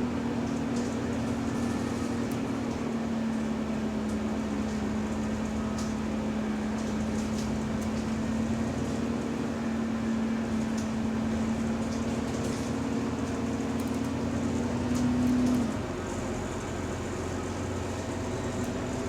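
Bus interior while driving: a steady whine at one held pitch over the road and drivetrain noise, cutting off about fifteen to sixteen seconds in, with a few faint rattles. The uploader takes the whine for a subtle, weird noise from the bus's differential.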